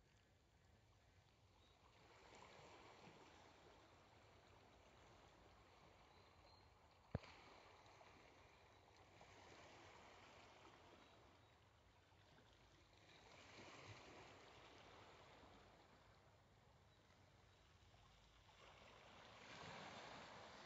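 Faint wash of small waves lapping on the shore, rising and falling every few seconds. A single sharp click about seven seconds in.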